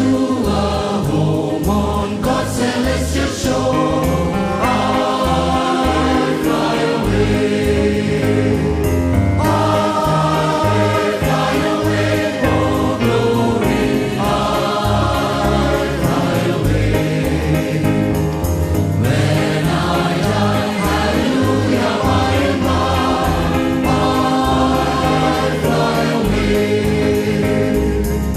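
A choir singing gospel music, many voices holding sustained chords.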